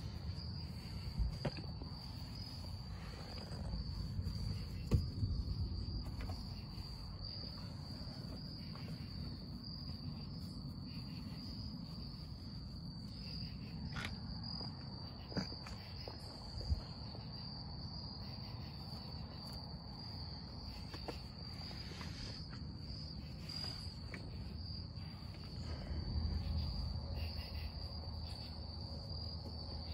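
Crickets trilling steadily. Over it are low handling rubs and a few short knocks as a microfiber towel wipes oily overspray off a truck's door sills.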